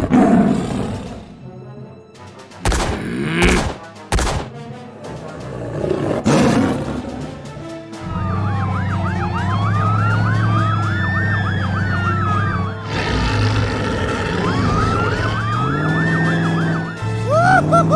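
Several thumps and crashes in the first half. Then, from about halfway, a police-style siren wails up and down repeatedly over a steady engine drone, with a quick yelp of the siren near the end.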